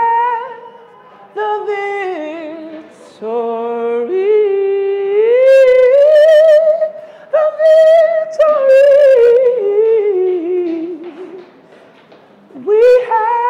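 A man singing unaccompanied in a high voice: worship ad-libs of long held, wavering notes that slide up and down between pitches, in several phrases with short breaths between them.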